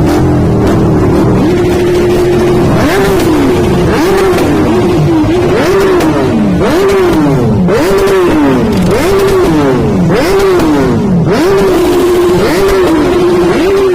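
Motorcycle engine and exhaust revved repeatedly in quick blips, about one a second, each sharp rise in pitch followed by a falling drop as the revs die away, with a steady hold at high revs near the start and again near the end.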